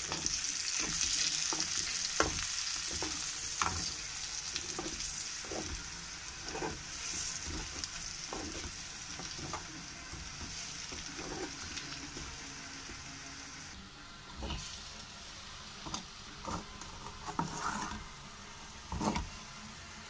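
Hot oil sizzling in a steel kadai as whole boiled eggs, fried onions and chilli powder are stirred with a steel spoon, the spoon scraping and clicking against the pan every second or so. The sizzle dies down over the stretch, with a few louder knocks of the spoon near the end.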